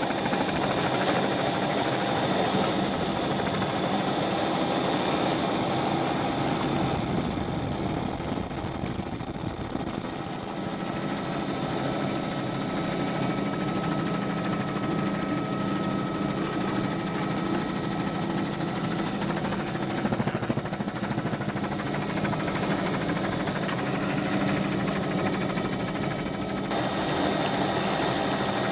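Steady drone of a helicopter's engine and rotor, with a few steady tones through it; the tone shifts about seven seconds in and again near the end.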